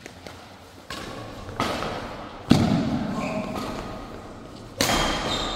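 Badminton rally: sharp racket strikes on the shuttlecock and thudding footfalls on the court, about one every second or so and echoing in the hall. The loudest is a heavy thud about two and a half seconds in.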